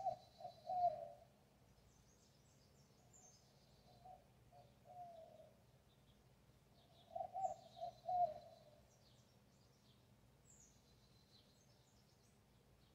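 A dove cooing in three short phrases of several low notes, the first and last louder than the middle one. Small birds chirp faintly and high-pitched in between.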